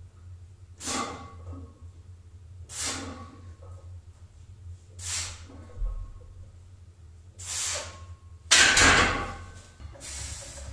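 A bench-presser breathing out hard, one sharp breath per rep about every two and a half seconds, four times, over a low steady hum. A louder, rougher burst about a second long follows near the end.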